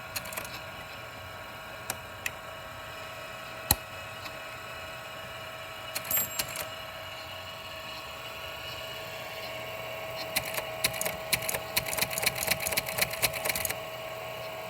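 Teletype machine with its motor running steadily, giving a few separate clicks and then, near the end, about three seconds of fast mechanical clicking as the mechanism works.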